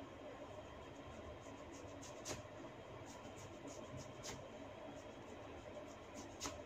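Hair cracking: small sharp snaps from tufts of hair being tugged at the scalp. Three clear cracks come about two seconds apart, with fainter clicks between them and a soft scratchy rustle of fingers in the hair.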